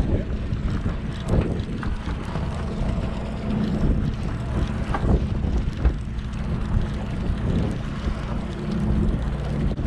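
Wind buffeting the microphone over the steady low drone of a boat's engine, with a few short knocks.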